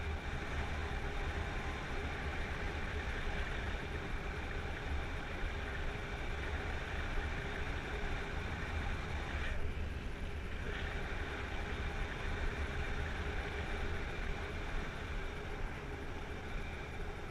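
Wind rushing over an action camera's microphone in paraglider flight: a steady low rumble with a hiss above it, thinning briefly about ten seconds in.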